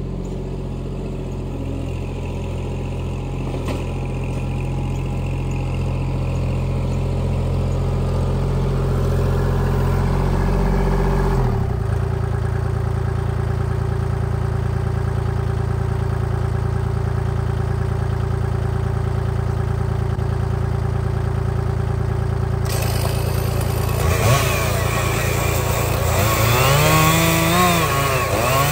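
Kubota tractor's diesel engine running steadily, its note changing about eleven seconds in. In the last few seconds a higher engine note rises and falls as it revs up and down.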